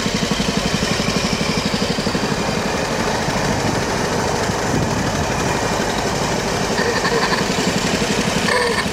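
Vintage motorcycle-and-sidecar's engine running steadily as the bike rides along, a fast, even beat of firing pulses.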